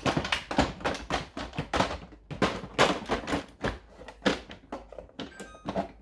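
Plastic ice bin from an LG refrigerator's in-door ice maker being handled and knocked about while jammed, frozen-together ice is cleared from it. Rapid, irregular clattering and knocking of plastic and ice, with a few short clinks near the end.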